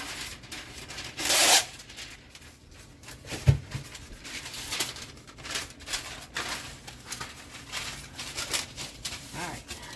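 Rubbing, scraping and rustling from food preparation on a countertop. A louder rustle comes about a second in, and a single low thump about three and a half seconds in.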